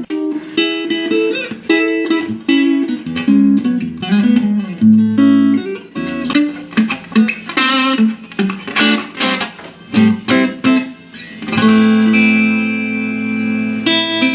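Electric guitar played for a tone check: a string of quick single-note licks, then a chord struck about two-thirds of the way in and left ringing.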